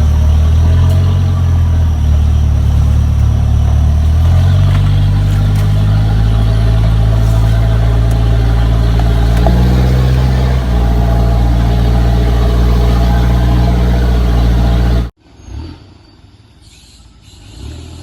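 Kia Sportage 4x4's engine revving on an off-road trail, its pitch stepping up and down several times. About 15 seconds in the sound cuts off suddenly, leaving a much quieter background with a couple of soft thumps.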